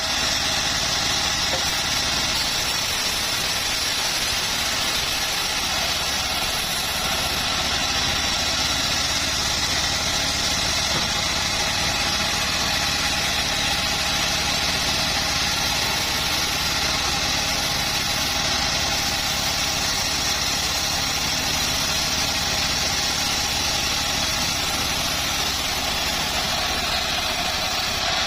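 Homemade bandsaw mill running steadily, sawing acacia wood, with an even, unbroken machine noise.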